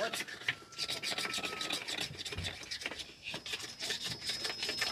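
Rapid, irregular scratchy rubbing and scraping noise, with a faint thin steady whistle near the start and a higher thin tone near the end.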